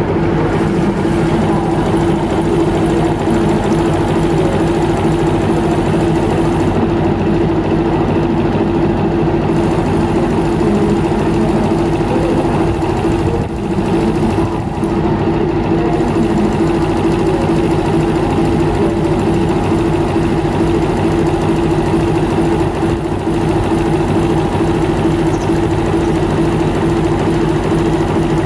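TEM18DM shunting diesel locomotive idling while standing, a steady engine drone with a constant hum over it.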